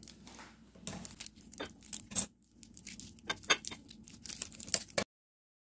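Plastic candy-bar wrapper crinkling and tearing as a chocolate stick is unwrapped: irregular sharp crackles that stop abruptly about five seconds in.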